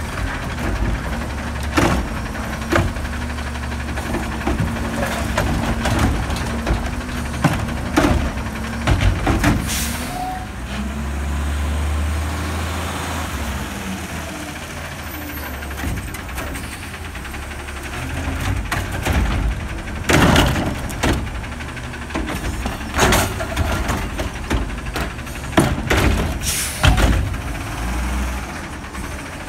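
Automated recycling truck working at the curb: its engine runs steadily with a swell about halfway through, while the hydraulic arm hums and repeated knocks and clatters come from the arm and carts being handled.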